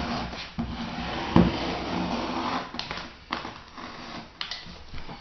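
Handling noises from working sheet vinyl flooring: rustling and scraping with a sharp knock about a second and a half in, then a few lighter clicks and knocks.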